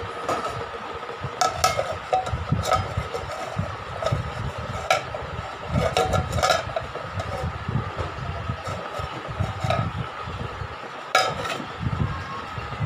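Prestige induction cooktop running with a steady high whine, while steel cookware and a steel plate clink sharply now and then as they are handled and set on the pot.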